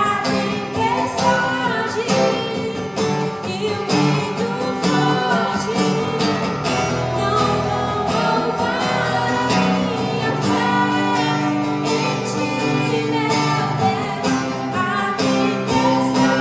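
A gospel song: a voice singing a melody over guitar accompaniment.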